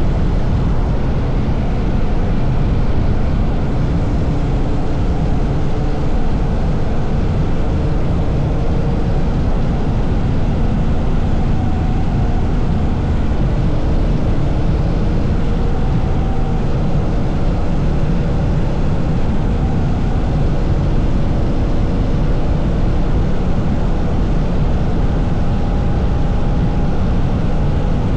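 Honda CRF1000L Africa Twin's parallel-twin engine running steadily at cruising speed, mixed with a constant rush of wind and road noise.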